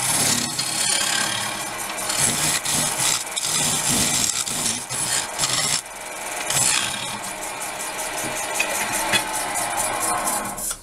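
Scraper cutting a spinning blank of wet ash on a wood lathe: a rough, rasping scrape of the cut over the running lathe as the surface is smoothed. The noise drops away suddenly at the very end.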